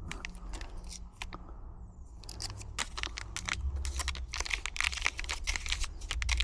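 Quick small clicks and scraping from an HU100R Lishi pick being handled and set into a car door lock, sparse at first and getting busier from about two seconds in.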